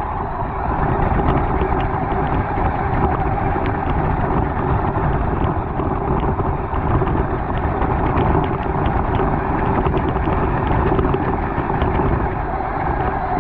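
RC car driving over wet grass, heard from a camera mounted on the car: a steady drivetrain whine under rumble and wind on the microphone, with scattered light ticks.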